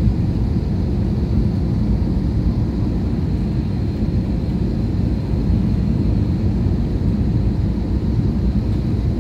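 Steady low rumble of a passenger airplane in flight, heard from inside the cabin, with a faint steady high whine above it.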